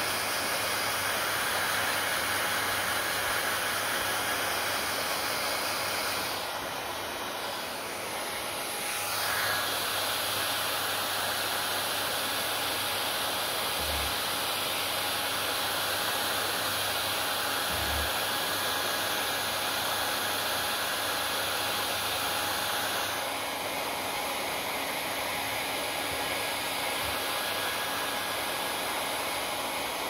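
Handheld hair dryer running, a steady rush of air over a low motor hum. The sound dips and shifts for a few seconds around six seconds in, and its tone changes again a little past twenty seconds.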